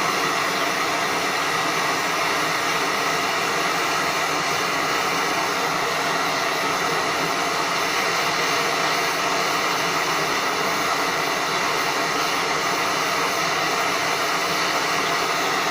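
Steady rushing of a gas torch flame heating a borax-glazed crucible, melting silver and tin together into solder alloy.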